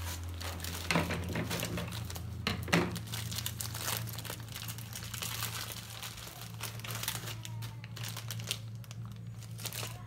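Thin plastic courier mailer bag crinkling and rustling as it is pulled open and handled, in irregular crackles with a few sharper rips about a second in and around two and a half to three seconds in. A steady low hum runs underneath.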